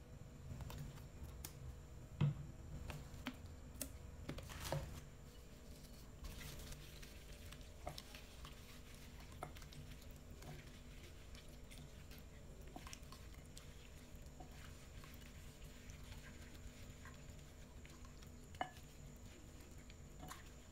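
Faint wet squishing and scattered small clicks of a gloved hand rubbing marinade into a raw chicken leg in a ceramic bowl, with a louder tap about two seconds in.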